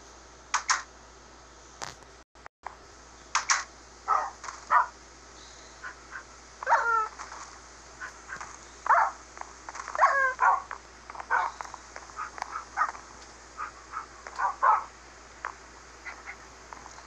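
A dog whining and yelping in many short, repeated cries, some sliding down in pitch.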